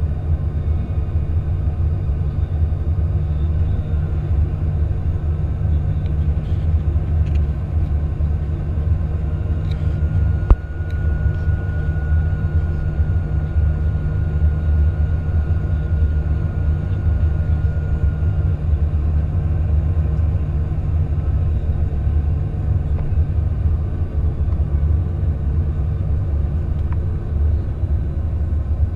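Airbus A310-300 cabin noise heard from a window seat beside the engine during the descent: a steady low rumble of engines and airflow. About ten seconds in there is a single sharp knock, followed by a faint steady whine lasting several seconds.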